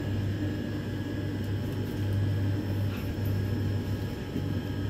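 Steady low hum and air rush inside a Mitsubishi Nexiez-MR machine-room traction elevator car travelling downward between floors.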